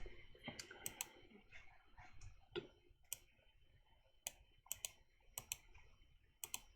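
Faint, irregular clicking of computer keyboard keys and mouse buttons, about a dozen sharp clicks spaced unevenly, as hotkeys and selections are made in 3D modeling software.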